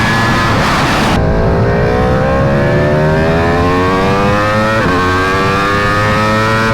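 V4 superbike with a catless aftermarket race exhaust accelerating hard, its pitch climbing steadily, with a quick upshift about two-thirds of the way through before it climbs again. A rougher, noisier engine sound in the first second cuts off abruptly.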